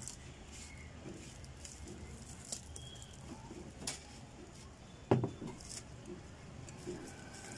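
Metal cutter snipping through the copper wire windings of a churning-machine motor's stator: a few scattered sharp clicks and clinks, the loudest about five seconds in.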